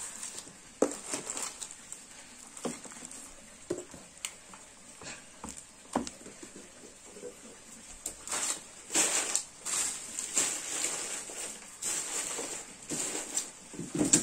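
Handling of a cardboard box and plastic bubble-wrap packaging: scattered light knocks and taps, then from about eight seconds in repeated bursts of crinkling and rustling.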